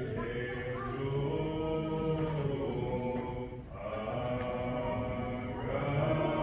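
A congregation singing a hymn together, long held notes in slow phrases, with a short breath break between phrases about three and a half seconds in.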